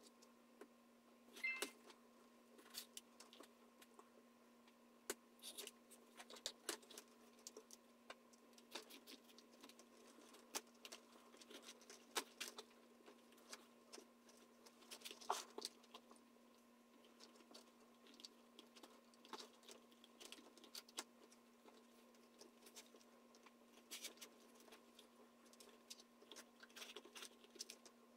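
Faint, irregular clicks and rustles of leather being handled as a thin leather lace is pulled through the punched holes of a holster strap, over a steady hum.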